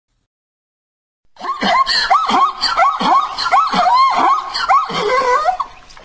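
Zebra calling: a run of yelping, barking calls, about two a second, each rising and falling in pitch, starting about a second and a half in and fading away near the end.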